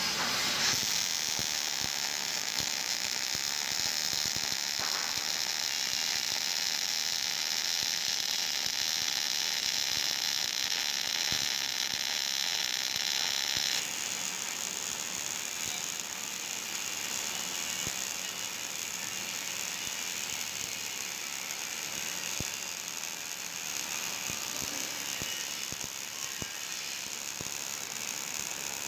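MIG welding arc crackling and sputtering steadily as a vertical-down fillet weld is run. About halfway through the crackle drops a little in level and its tone changes.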